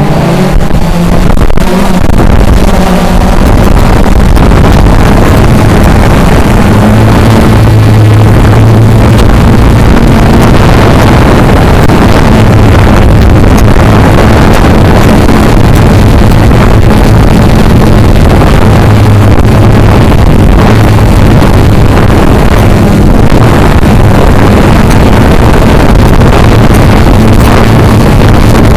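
Loud, steady drone of a CX-20 quadcopter's motors and propellers in flight, heard through the on-board camera's microphone. A low hum under a rushing noise swells and eases as the motors change speed.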